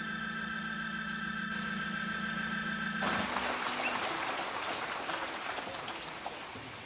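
Final held organ chord of a song, cut off about three seconds in. A steady crackling hiss follows and slowly fades away.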